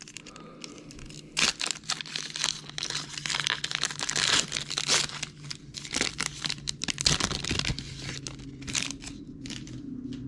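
A trading-card pack's wrapper being torn open and crinkled by hand, with irregular crackling rustles that start about a second and a half in and die down near the end.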